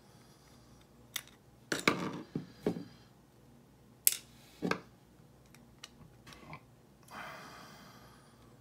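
Small metal clicks and taps from a Lockwood padlock's core and a small screwdriver as screws and parts are worked loose and handled, several in quick succession and two sharper ones about two and four seconds in. Near the end a softer sound lasts about a second and fades.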